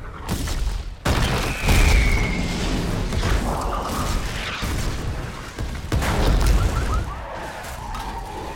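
Film sound effects of a disaster: a run of heavy booms and explosions as flaming debris crashes down, with the loudest hits about a second in and again about six seconds in. About two seconds in, a short high whistle falls in pitch.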